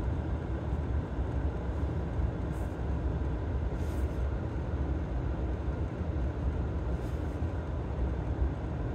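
Steady low background rumble with no clear events, of the kind a vehicle or wind on the microphone makes.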